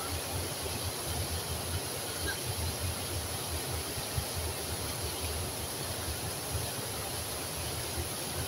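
Water pouring over a low river weir and splashing into the pool below: a steady rushing hiss.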